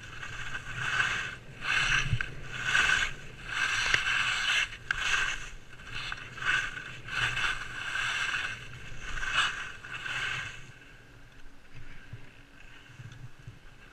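Skis scraping and carving on hard-packed groomed snow, with a surge of noise at each turn, roughly once a second. About ten seconds in the scraping stops, leaving a quieter scene with a faint steady hum.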